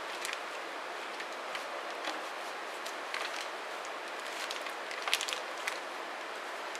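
Steady background hiss with a few faint, scattered clicks and rustles from a cloth wiping the rim of a metal tin.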